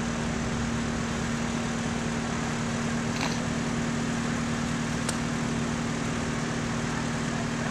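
Tractor engine running steadily with an even low hum, pulling on a tree, with a couple of faint clicks about three and five seconds in.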